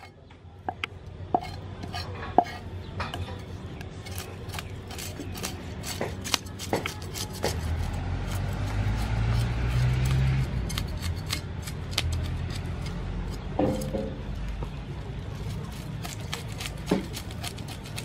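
A cleaver blade scraping the scales off a whole fish on a wooden chopping board: a run of sharp scraping clicks and ticks, getting denser with a low rumble for a few seconds in the middle.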